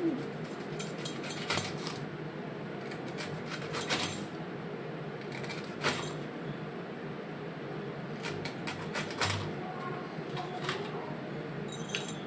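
Kitchen knife slicing a cabbage head into thin shreds on a cutting board: crisp cuts and taps in short runs of a few strokes, with pauses between the runs.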